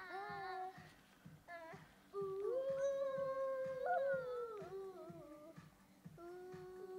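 Children singing a slow melody in long held notes, over a soft regular beat of about three pulses a second.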